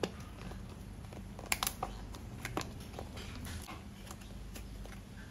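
Clear plastic food pouch being handled and crinkled: a scatter of sharp crackles, the loudest cluster about a second and a half in, over a low steady hum.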